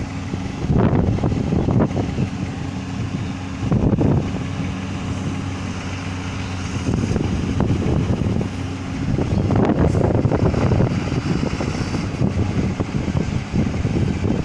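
A motor vehicle engine running steadily, with repeated surges of low rumbling noise from wind buffeting the microphone.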